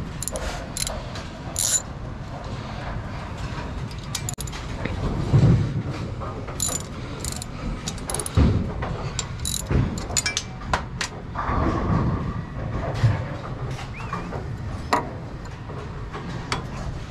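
Brunswick pinsetter running through its cycle: a steady low mechanical rumble with irregular metal clanks and clicks from its moving parts.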